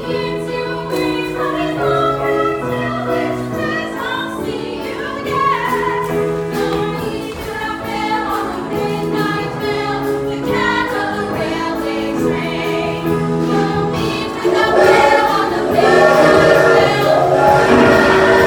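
Stage cast singing a song together in chorus over instrumental accompaniment, with long held notes. It swells louder a little past the three-quarter mark.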